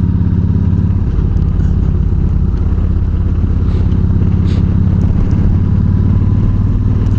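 Yamaha V-Star 1300's V-twin engine running steadily at a constant cruising speed, heard from on the bike as it rides along.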